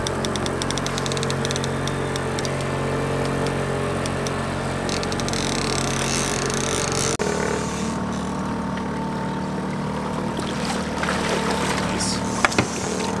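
Boat engine running steadily at trolling speed, with rapid ticking from a trolling reel being cranked in the first few seconds. The engine drone changes abruptly about halfway through, and two sharp knocks come near the end.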